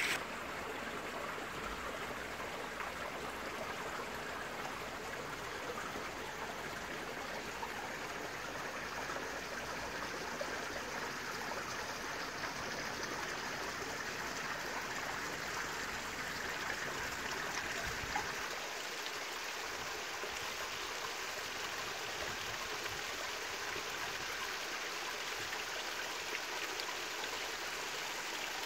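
Steady running water from a garden pond's water feature, trickling and splashing without a break.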